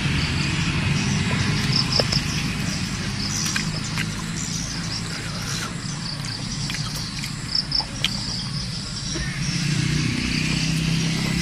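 Insects chirping in short repeated pulses over the low hum of a motor that swells near the end, with a few sharp crunches of someone biting into a crisp Malay apple (jambu bol).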